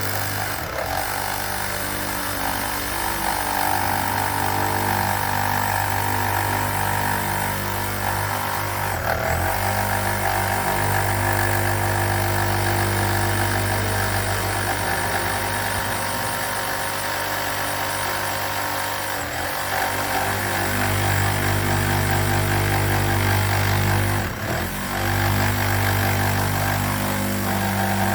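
An engine of heavy machinery runs steadily, its pitch shifting as the load changes, with brief dips about a third of the way in and again twice near the end.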